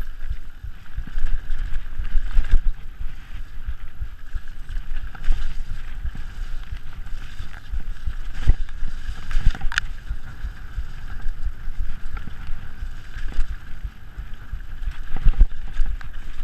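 Mountain bike riding fast down a rough dirt singletrack, heard from an onboard action camera: constant rumble and rattle from tyres and frame over the bumpy ground, with wind on the microphone. Sharp knocks come as the bike hits bumps, most clearly a little past the middle and again near the end.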